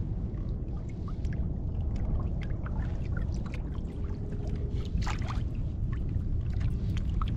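Water lapping and splashing against a kayak's hull in many small irregular slaps, under a steady low rumble.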